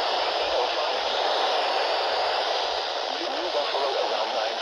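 Steady radio static hiss from a weather-alert broadcast on a weak signal, with a faint voice just audible under the hiss near the end.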